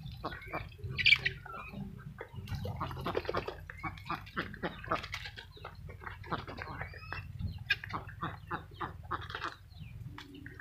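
Mixed poultry, Muscovy and white ducks with young chickens, at a feeder: a busy run of short peeps, chirps and clucks, with one louder, higher call about a second in.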